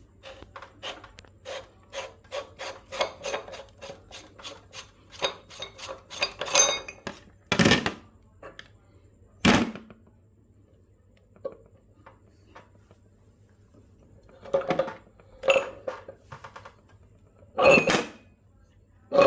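Handling noise of hard objects: a quick run of small clicks and scrapes for the first several seconds, then a few separate louder clattering knocks, over a faint steady hum.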